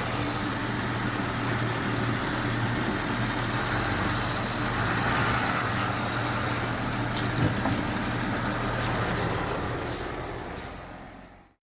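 Jeep Wrangler Rubicon's engine running steadily as the Jeep is driven, with a steady rushing noise over it and one brief knock about seven and a half seconds in. The sound fades and cuts off near the end.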